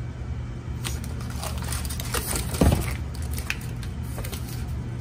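Foil-faced butyl sound-deadener sheets (Noico 80 mil) and their cardboard packaging being handled and lifted out of the box: crinkling and crackling from about a second in, with one thump about halfway through.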